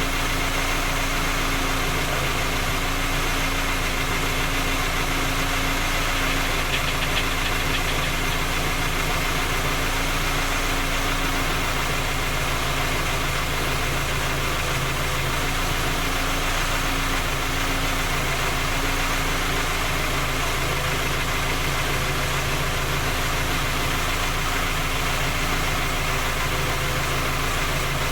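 Skoda Octavia A5 1.6 MPI petrol engine idling steadily with a knock. The owner says the knock shows on a cold engine and that three engine repairs have failed to find its cause.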